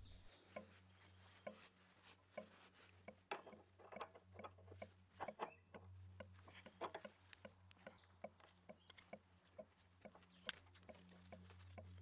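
Faint, irregular clicks and taps of an open-end wrench and hands working a brass hose fitting on a hydraulic gear pump, over a faint low steady hum.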